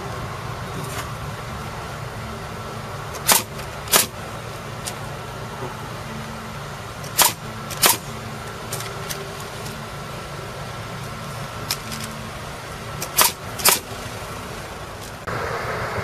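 Pneumatic framing nailer firing three pairs of nails, two shots about half a second apart each time, as studs are nailed through the plate of a wall frame. A steady mechanical hum runs underneath.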